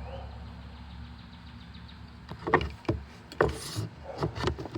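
Hand tools and a metal wire-stripping jig being handled: a steady low rumble, then, from about halfway in, a quick run of irregular sharp metallic clicks and knocks with a brief scrape.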